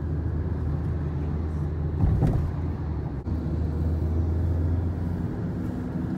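Road and engine noise inside a moving car's cabin: a steady low rumble, with a brief louder surge about two seconds in.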